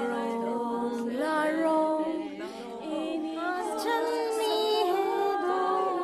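Several women's voices singing together without instruments, holding and sliding between overlapping long notes.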